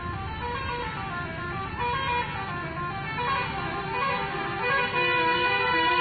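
Multi-tone 'telolet' horn playing a stepping tune of short notes, growing louder, over a low traffic rumble.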